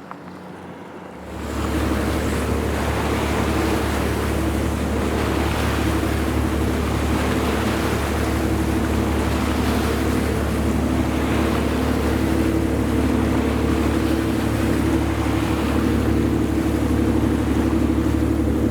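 Tugboat's diesel engine running at a steady drone over the rush of water and some wind noise; the level jumps up sharply about a second in.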